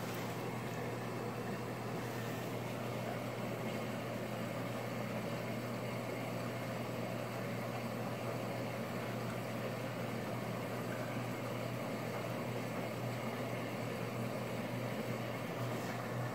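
Frigidaire Affinity front-load washing machine running with its drum turning, a steady hum under an even mechanical wash. It is going normally on a test run after its clogged drain pump was cleared.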